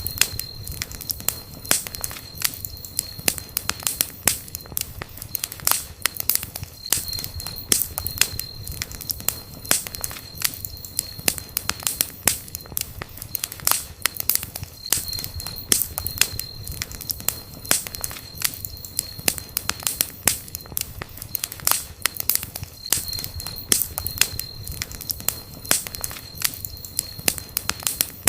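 Wood campfire crackling, with frequent irregular sharp pops and snaps. A faint thin high-pitched tone comes and goes several times.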